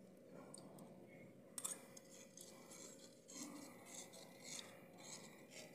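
Faint, repeated scraping of a steel spoon working wet ground masala paste through a metal mesh strainer, with a light clink about a second and a half in.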